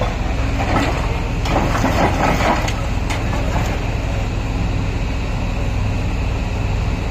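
Kobelco hydraulic excavator's diesel engine running steadily under load as its grab attachment clamps and lifts a load of broken concrete debris. Rubble knocks and scrapes against the grab for about the first three seconds, then only the steady engine hum remains.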